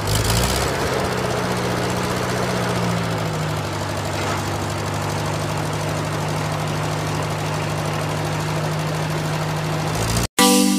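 Tractor engine running steadily at idle, with a chugging, knocking beat. Its pitch shifts a little in the first few seconds, then holds, and the sound cuts off abruptly near the end.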